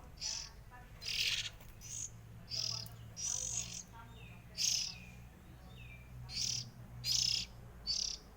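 Oriental magpie-robins (kacer) giving short, harsh, high chirps over and over, about one or two a second, with a few softer downslurred notes midway.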